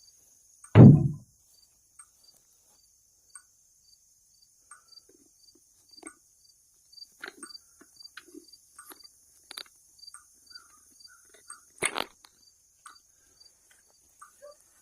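Insects chirping steadily at a high pitch, about two chirps a second. A heavy, deep thud comes about a second in, then scattered knocks and clunks, with one sharp loud knock near the end.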